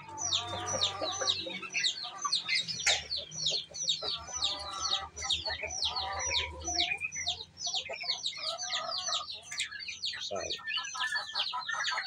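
Birds chirping continuously: short, high, downward-sliding chirps about five a second, overlapping, with lower calls mixed in now and then.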